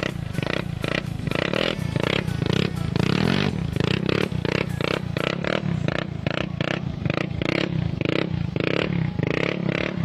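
Yamaha Mio Sporty scooter's single-cylinder four-stroke engine running through an aftermarket RRGD racing exhaust pipe, revving, with a rapid pulsing exhaust note.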